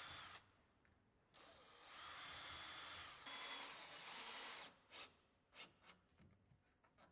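Faint power drill running in two runs, a short one and then one of about three seconds, while fixing the striking plate to the door lining. It is followed by a few short clicks and knocks.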